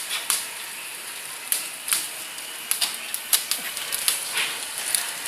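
Irregular crackling and clicking of woven plastic sack material, sharp snaps every fraction of a second over a light hiss.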